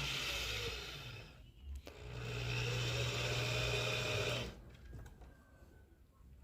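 Electric drill running in two bursts, one of about a second and a half and one of about two and a half seconds, with a short pause between.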